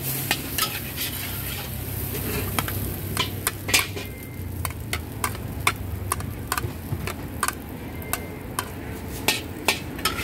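Metal spatula scraping and clinking against a steel wok as fried yellow noodles are stirred and scooped out, with an irregular run of sharp clinks over a steady sizzle.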